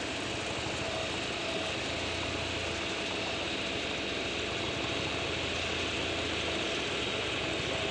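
Heavy vehicle engine running steadily, a low hum under a wide even hiss.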